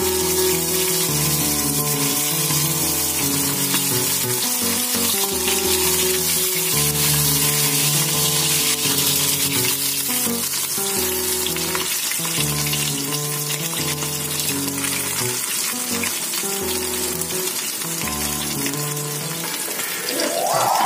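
A flour-coated pompano shallow-frying in hot oil in a frying pan, the oil sizzling steadily. Background music with a low bass line plays underneath.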